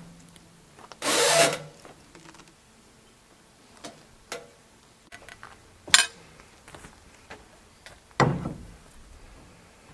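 Sawn wood being handled: a short scraping slide about a second in, then a few scattered knocks and a heavier thump near the end.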